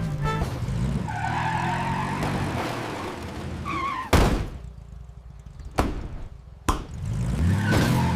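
Tractor engine running, broken by a loud thump about four seconds in and two sharper knocks after it; the engine drone comes back near the end.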